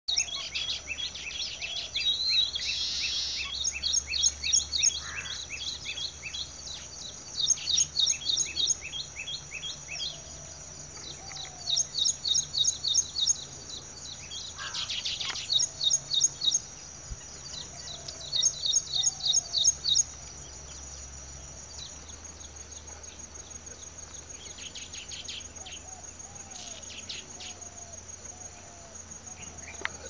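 Weaver birds chattering in runs of quick, repeated high chirps, each run lasting a second or two with pauses between. A steady high insect trill runs underneath and carries on alone after the chirping stops, about two-thirds of the way in.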